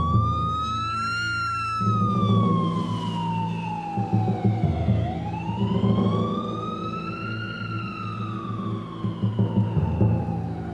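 Emergency-vehicle siren on a slow wail, its pitch sweeping up and down over several seconds at a time, twice. Under it runs music with a pulsing low beat.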